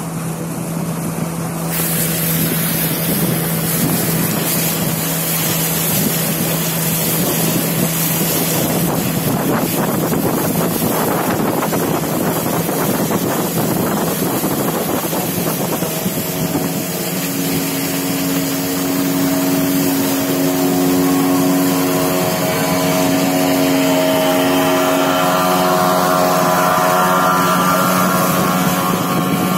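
Outboard motor of a river longboat running steadily under way, with wind and water rushing past. From about halfway, a second longboat's outboard engine comes in and grows louder as it passes close by.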